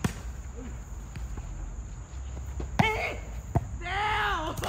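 A volleyball being hit in play: a sharp smack at the start and two more about three seconds in. A player's voice calls out near the end.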